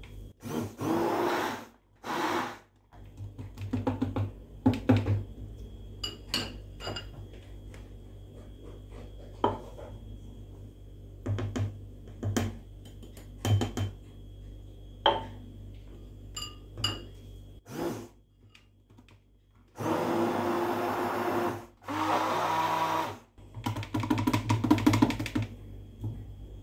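Immersion (stick) blender run in short bursts in a plastic jug of crêpe batter: twice near the start and three more times near the end. Between the bursts come scattered knocks and clicks of the jug and glasses.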